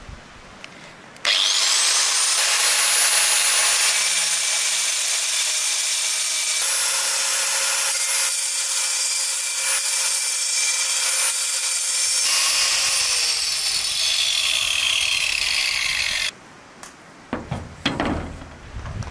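Angle grinder with a cutting disc cutting through a beef marrow bone clamped in a vise. The motor whine rises as it starts about a second in, holds steady high over a harsh grinding hiss, then sinks in pitch and stops suddenly, followed by a few knocks near the end.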